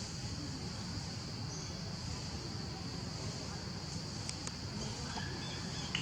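Steady high-pitched insect drone over a low rumble, with a few short high chirps or squeaks in the last two seconds.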